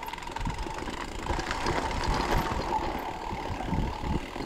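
ToSeven DM01 mid-drive e-bike motor whining steadily while the bike rolls over a rough stony trail, with tyre rumble and irregular knocks and rattles from the bumps.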